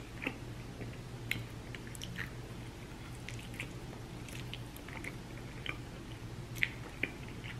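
Close-miked chewing of a chicken wing: soft, irregular wet mouth clicks and smacks with bites, over a faint steady low hum.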